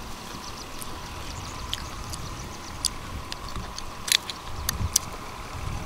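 Scattered sharp clicks and small knocks of steamed mud clam shells being pried open and handled while eating, about half a dozen over a few seconds, over a low steady rumble.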